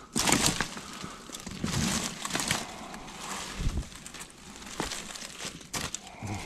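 Dry leaves and brush crunching and rustling underfoot and against the body as someone pushes through dense undergrowth and vines, with a few sharp cracks among the irregular rustling.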